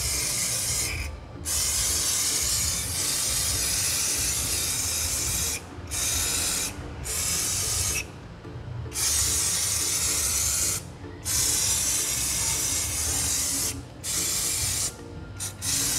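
Aerosol brake cleaner spraying onto a drum brake assembly: a loud hiss in a series of long bursts broken by short pauses.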